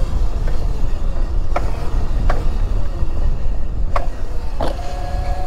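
Razor SX500 electric dirt bike on its stock motor, run on a 48-volt lithium battery, riding with wind rumbling heavily on the body-mounted microphone and a few knocks from the chassis. A steady electric motor whine sets in near the end as the front wheel comes up in a wheelie.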